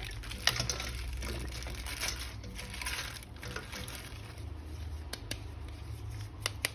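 Quiet handling noises with faint rustling and a few sharp light clicks, about half a second in, around five seconds in and near the end.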